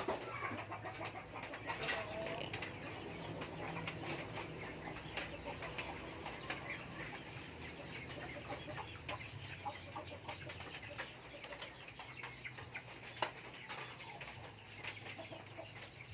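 Carbonara sauce boiling in a pan as pasta is stirred in: soft bubbling with many small pops and utensil clicks over a low steady hum.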